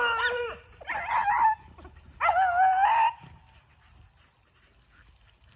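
Beagles baying on a rabbit's track: three drawn-out howls in the first three seconds, two dogs overlapping at the start, then the pack falls quiet. This is hounds giving voice as they run the scent of a cottontail.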